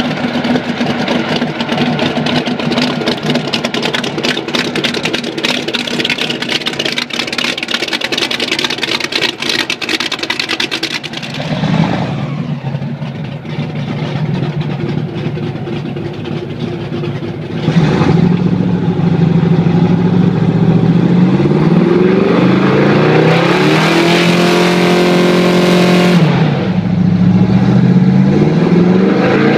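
Whipple-supercharged big-block airboat engine and its four-blade propeller running loud. The sound drops back about twelve seconds in, then jumps to full throttle at about eighteen seconds, with the revs rising and falling. The boat is straining against a scale on a static thrust test.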